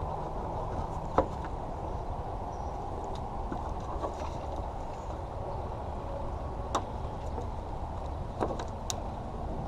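A few short, sharp clicks and clinks of hand tools on metal fasteners, over a steady low background rumble.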